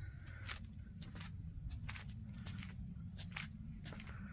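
A cricket chirping steadily outdoors, about three chirps a second. Several light clicks and taps are scattered through it over a low rumble.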